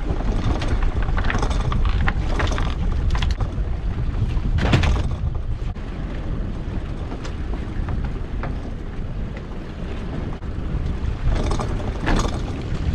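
Lobster pot rope hand-hauled over the side of a small boat, with scrapes and knocks against the hull, under a steady rumble of wind on the microphone. Near the end a cluster of knocks as the netted creel pot comes up against the gunwale.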